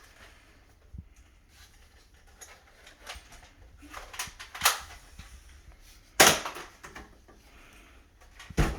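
Nerf blaster being handled and primed, with scattered plastic clicks and rattles, then firing with a sharp pop about six seconds in. Another sharp knock comes near the end.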